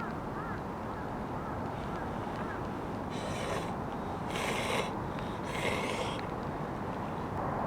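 A bird gives three harsh calls about a second apart, each about half a second long, over a steady background hiss.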